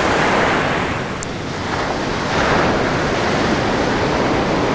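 Waves washing in, with wind buffeting the microphone; the wash eases briefly about a second in, then builds again.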